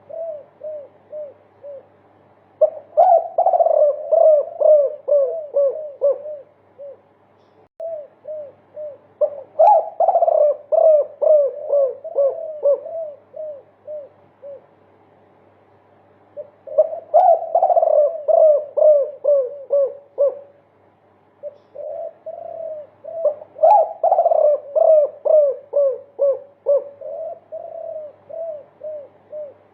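Spotted doves (derkuku) cooing in the long 'multi-kuk' style: four runs of many quick, repeated coo notes, each run lasting a few seconds, with short pauses between.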